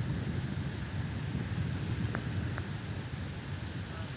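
Wind buffeting the microphone of a camera carried on a moving bicycle: a steady low rumbling rush, with two faint clicks about two seconds in.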